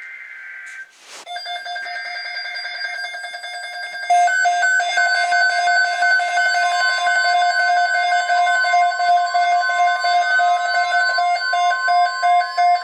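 Emergency Alert System alert on NOAA Weather Radio: short bursts of data screech near the start, then several weather alert radios sound their beeping alarm tones over one another, louder from about four seconds in. In the second half a steady tone near 1 kHz joins and a few tones slowly rise in pitch.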